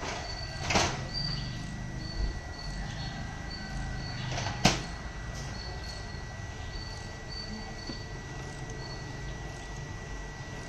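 Epson inkjet photo printer printing: the print-head carriage runs back and forth over a steady motor hum, with short high whines repeating about every second. There is a sharp mechanical click about four and a half seconds in, and a shorter noisy burst about a second in.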